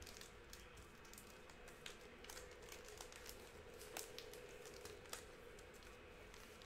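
Near silence: a faint steady room hum with scattered soft clicks and rustles of handling, the clearest about four seconds in and again about a second later.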